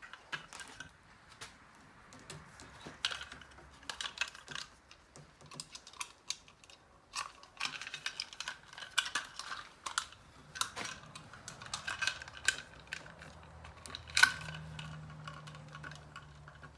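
Irregular small clicks and taps of electrical cable and wire being handled and worked into an electrical box, with one sharper knock about 14 seconds in. A faint low hum comes in near the end.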